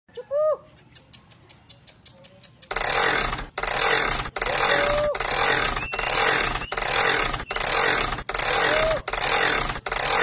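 Small dog making loud, rhythmic rasping huffs, about one every three-quarters of a second, with brief whines mixed in; they start a few seconds in, after two short arching yelps.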